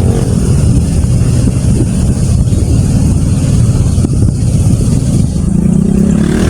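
Loud wind rumble buffeting the microphone over the noise of a moving vehicle.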